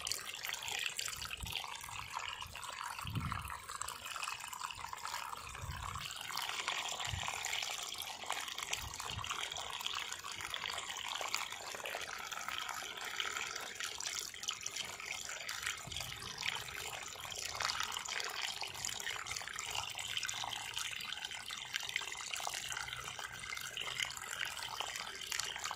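Groundwater flowing steadily out of a borewell's broken PVC casing pipe and spilling onto muddy ground. The bore is overflowing by itself with no pump running, because the water table has risen after heavy rains.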